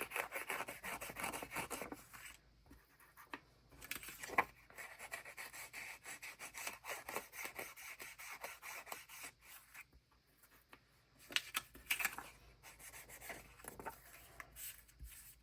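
Distress ink being rubbed onto the edges of journal paper: quick, repeated rubbing strokes on paper, in a few spells with short pauses between them.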